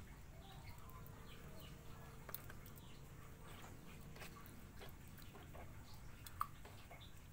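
Faint, irregular wet handling sounds and small clicks of a hand and a plastic cup stirring and scooping a tub of sludge worms (tubifex) in water, with one sharper click near the end. Faint bird chirps sound in the background.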